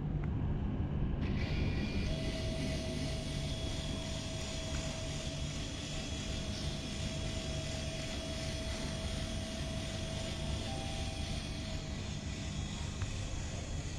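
Nemo electric hull-cleaning brush's motor running underwater: a steady drone with a low hum, joined about two seconds in by a faint constant whine.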